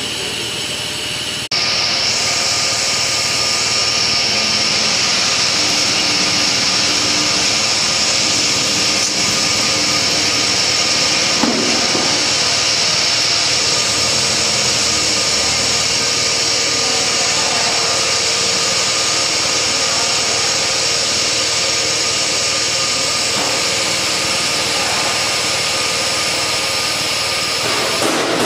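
1000 mm bubble film making machine running: a steady mechanical whir and hiss with several constant tones. It jumps suddenly louder about a second and a half in.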